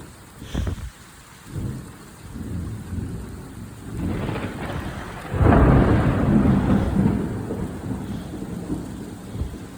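Thunder in a heavy rainstorm: a sharp crack about half a second in, then a rolling low rumble that builds to its loudest about five and a half seconds in and slowly dies away, over steady rain.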